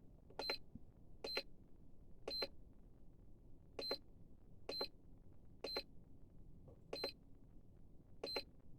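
Eight short, high-pitched electronic beeps at uneven intervals, each with a faint click, from the buttons of a hobby LiPo battery charger being pressed.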